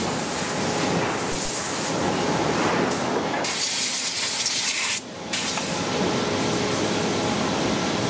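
Sawmill machinery running: a steady mechanical noise with hiss. A brighter, louder hissing rush comes in at about three and a half seconds and cuts off suddenly at about five seconds.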